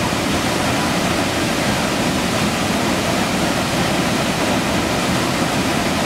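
Waterfall plunging into a rock-walled pool below: a steady, even rush of falling water.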